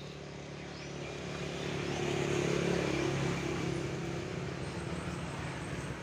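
A motor vehicle passing on the road, its engine and tyre noise rising to a peak a couple of seconds in, then fading away.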